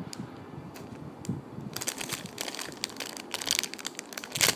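Crinkling and crackling from handling and squeezing a foam squishy toy, sparse at first, then dense from about halfway through, loudest just before the end.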